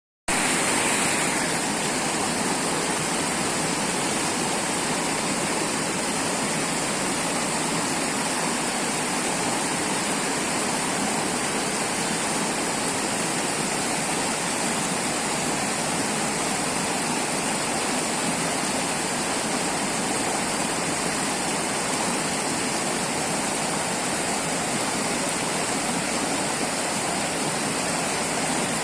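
River water rushing and splashing over rocks in a steady, even flow.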